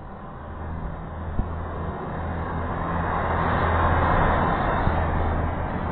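A person snoring: one long rasping breath over a low rattling drone that swells for about four seconds and then eases off.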